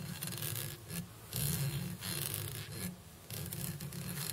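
Holographic mylar tinsel rubbing through fingers under tension as it is wrapped around a fly hook shank: a rustling stroke about once a second, four in all.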